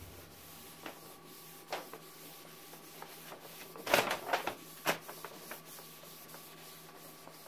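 Paper towel wet with denatured alcohol rubbed and scuffed across a sanded carbon-fibre panel in a solvent wipe-down, with a few louder scuffs about four and five seconds in, over a faint steady hum.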